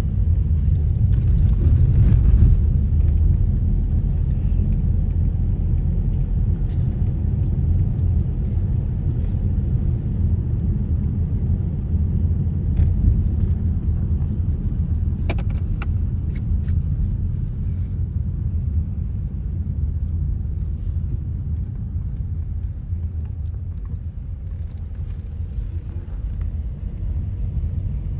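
Steady low rumble of a car driving, engine and tyre road noise heard from inside the cabin.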